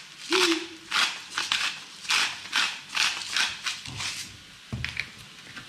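Hand-twisted salt grinder crunching coarse pink salt crystals, about two twists a second, then stopping. A couple of dull knocks follow near the end.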